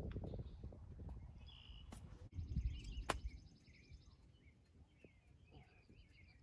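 Low outdoor rumble of wind noise, then birds chirping, with a single sharp click about three seconds in: a golf iron striking the ball on a short chip shot.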